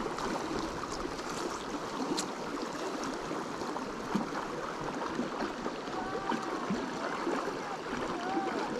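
Small creek's water running steadily over its bed, an even rushing with no breaks.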